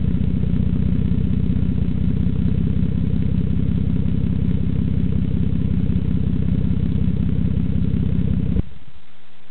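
Toyota Supra twin-turbo VVT-i's 2JZ-GTE straight-six idling steadily through a Miami GT exhaust with the second catalytic converter removed (decat pipe), heard at the tailpipe as an even, pulsing idle. It cuts off abruptly near the end.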